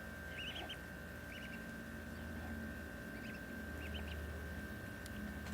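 Ducks giving short, high calls in small clusters of two to four, faintly, over a steady low hum.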